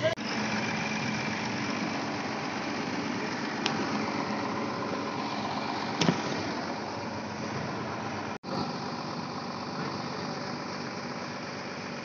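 Combine harvester running while it harvests wheat: a steady, dense din of engine and threshing machinery, with a sharp click about six seconds in and a brief sudden dropout a little past eight seconds.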